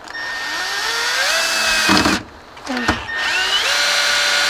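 Cordless drill driving screws into the wooden frame in two long runs. The motor whine climbs as it spins up, holds, and stops about two seconds in. After a short pause and a knock, a second run spins up and holds to the end.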